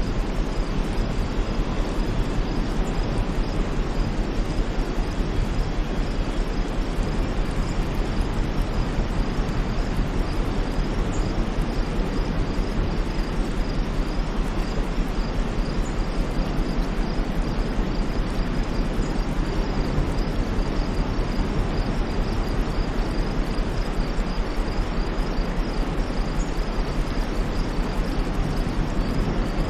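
Steady, unchanging white-noise track, heavier in the low end, with no swells or breaks. A faint high-pitched pulsing runs through it.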